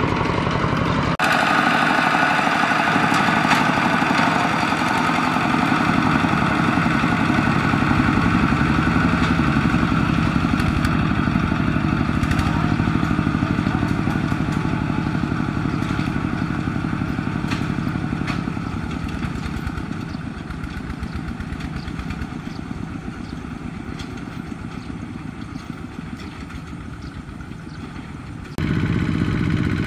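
Two-wheel walking tractors' single-cylinder diesel engines chugging steadily while pulling loaded trailers, growing fainter in the second half as they move away. The sound changes abruptly about a second in and jumps back to full loudness near the end.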